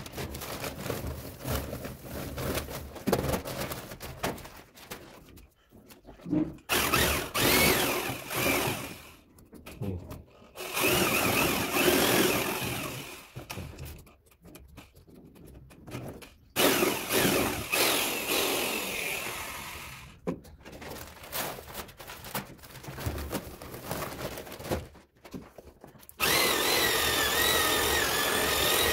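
Electric handheld paddle mixer stirring mortar in a bucket, its motor whining in repeated bursts with short pauses between. Near the end it runs steadily and louder.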